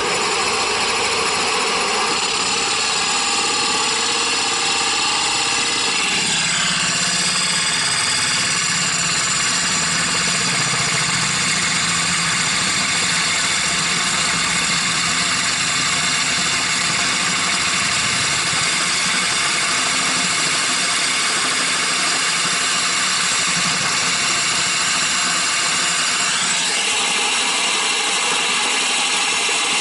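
Cordless drill running at low speed, its tungsten-carbide grit hole saw grinding down into ceramic tile. Its note drops about six seconds in and rises again near the end.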